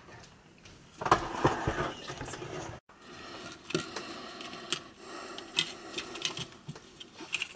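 Gloved hands handling the plastic earcup and headband of JBL Tune 510BT headphones: rustling with light plastic clicks and knocks. The busiest stretch begins about a second in and cuts off abruptly just before three seconds. Scattered single clicks follow.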